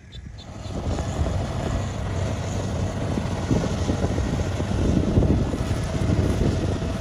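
Kubota DC-70 combine harvester running steadily as it cuts rice, a continuous engine drone with wind buffeting the microphone. It comes in about half a second in, over faint insect chirping that stops.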